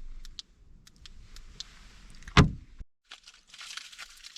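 Wind hiss and small knocks, then one loud, heavy thump of a car door shutting about two and a half seconds in. After the thump the wind noise stops abruptly, leaving only faint rustling.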